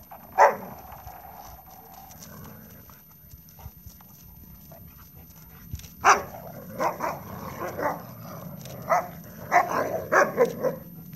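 Alaskan malamutes barking in play: one short bark about half a second in, then a run of short barks close together from about six seconds in while the dogs tussle.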